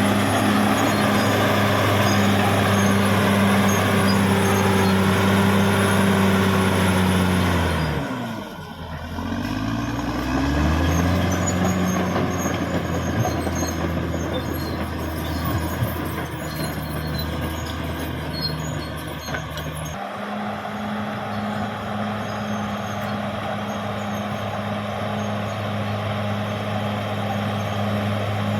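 Caterpillar D6R XL bulldozer's diesel engine running steadily. About eight seconds in its revs drop sharply and climb back within a few seconds. About twenty seconds in the engine sound changes abruptly.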